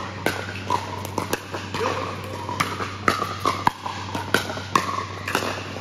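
Pickleball rally: about a dozen sharp pops of paddles hitting the plastic ball in quick, irregular succession, over a steady low hum.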